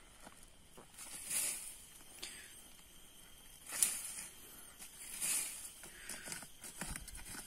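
Hands scooping and a knife blade scraping loose soil while digging a small hole: a few separate gritty scrapes, one sharper than the rest about four seconds in, with lighter scratching between.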